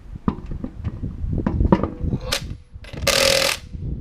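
Metal parts knocking and clattering, then about three seconds in a short burst of an impact wrench hammering a lug nut tight on a wheel-spacer stud.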